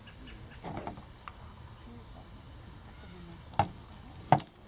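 Plastic containers being handled while honey is poured into orange juice concentrate: soft handling noises, then two sharp clicks near the end, over a steady high insect drone.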